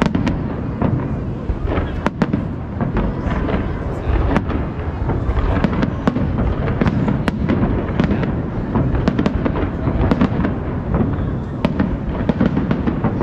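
Aerial fireworks shells bursting in rapid succession: a dense, continuous run of booms and sharp pops over a heavy low rumble.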